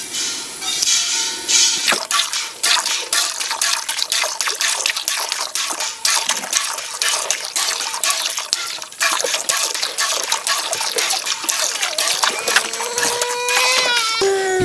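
Cow being milked by hand: quick, rhythmic squirts of milk hiss into a metal milk pail. Near the end come a few short high-pitched cries.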